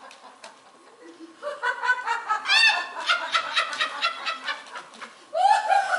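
Actors imitating clucking hens: rapid, high-pitched clucks that grow loud about a second and a half in and come back in a loud burst near the end.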